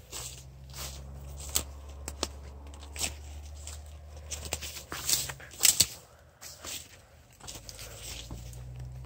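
Footsteps crunching through dry leaves, grass and fallen twigs, with irregular sharp crackles and snaps of twigs underfoot, loudest a little past the middle. A low steady hum sits underneath for the first few seconds.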